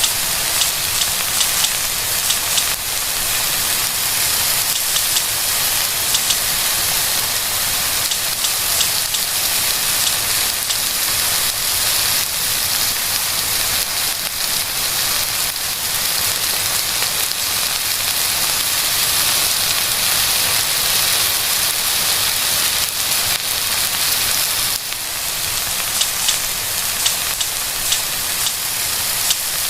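Stir fry sizzling in a hot steel pan: a steady, dense hiss with scattered crackles and pops.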